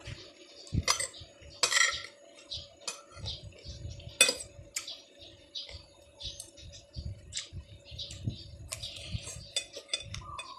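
Spoon and fork clinking and scraping against a plate while eating rice and noodles, with chewing between the strokes. A sharp clink about four seconds in is the loudest.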